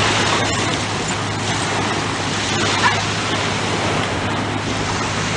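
Steady rush of surf on a beach, with a short dog bark about three seconds in.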